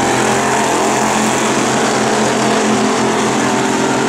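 Several dirt-track stock cars racing at full throttle, their engines running together as a loud, steady drone.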